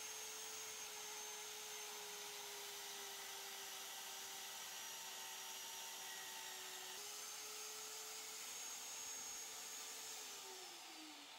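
Magnetic core drill (A10) boring into a steel post with an annular cutter: a steady electric motor whine under load. The pitch steps up slightly about seven seconds in, then falls away near the end as the motor is switched off and spins down.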